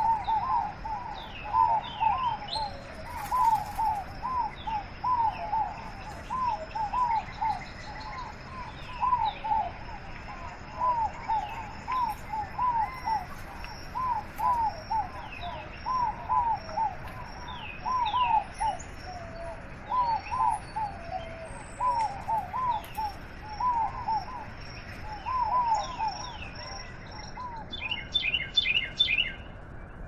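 Birds calling over the steady rush of a rocky stream. The loudest call is a short clear note repeated in twos and threes every second or so, with thin high chirps and a high steady trill above it. Near the end the lower calls and the trill stop, and a quick flurry of high chirps follows.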